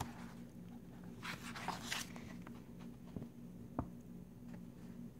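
Pages of a paperback colouring book being turned by hand: a papery swish about a second in, then two light taps, over a faint steady hum.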